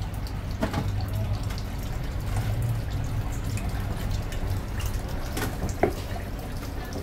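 A Chinese cleaver chopping braised goose feet on a thick wooden chopping block: a few sharp chops, the loudest two close together near the end, over a steady low hum and hiss of kitchen noise.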